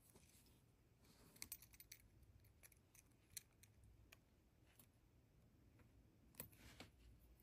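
Faint scattered clicks and small metallic snips of jewelry pliers working wire and a head pin, with a quick cluster about a second and a half in and another near the end.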